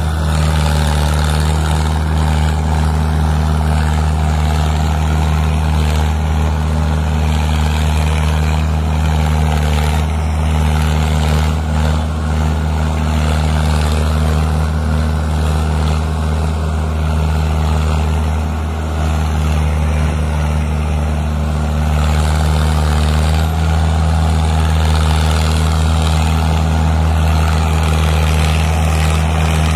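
Mahindra Arjun 555 DI tractor's diesel engine running steadily under heavy load as it hauls a fully loaded trolley through soft mud. The engine eases slightly a little past halfway, then picks up again.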